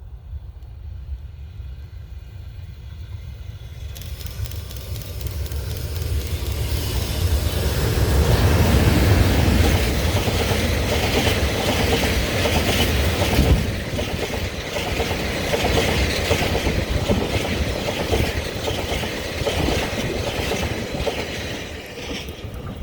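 A JR Freight EH200 electric locomotive passing with its freight train. The sound builds over the first eight seconds or so, then the wagon wheels clatter rhythmically over the rail joints for about twelve seconds, easing near the end. Wind buffets the microphone throughout.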